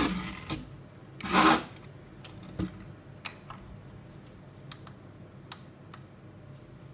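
Plastic remote-control toy car being set down and slid on a hard surface: a scrape as it lands, a louder rasping scrape about a second and a half in, then a few light clicks.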